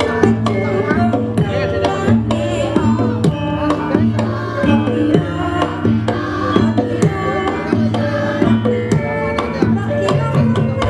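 Javanese gamelan ensemble playing: many ringing metallophone notes held over a steady run of drum strokes, some of them bending in pitch.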